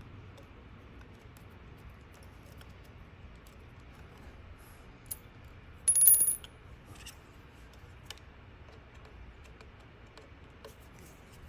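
Faint ticks of small metal parts being handled, with one brief, bright metallic clink of small metal striking metal about six seconds in.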